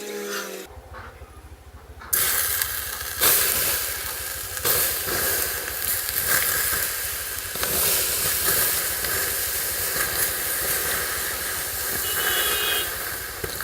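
A mass of fireworks burning: a loud hiss with scattered crackles starts suddenly about two seconds in and keeps going.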